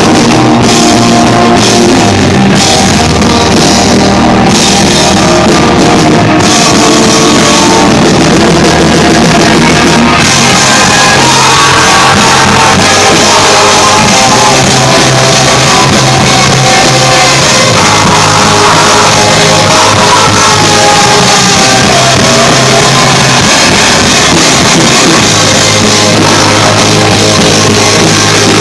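Rock band playing live and very loud: drum kit and guitars, with sung and shouted vocals at times. The first few seconds come in stop-start hits, and then the whole band plays on without breaks.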